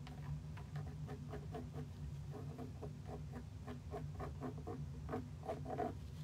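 Rapid dabbing and tapping of a paint tool against a stretched canvas on an easel: a run of soft knocks about three or four a second, loudest near the end, over a steady low hum.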